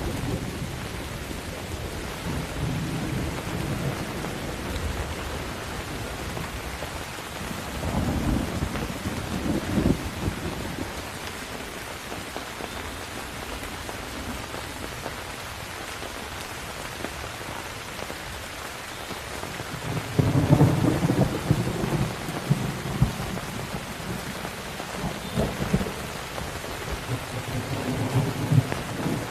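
Steady rain with rolling thunder: a rumble swells about eight seconds in, a louder peal comes about two-thirds of the way through, and further rumbles follow near the end.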